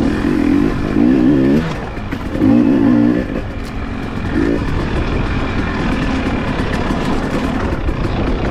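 Off-road motorcycle engine revving in short bursts, its pitch wavering up and down four times in the first five seconds, then running more evenly, with scattered clicks and knocks over it.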